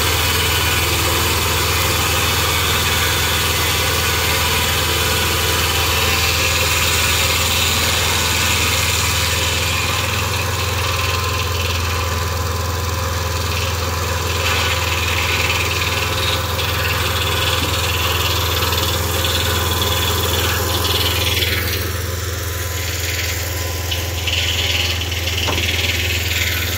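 Engine of a Mobile Dimension Model 12 sawmill running steadily at idle, a low even drone, with the saw not cutting.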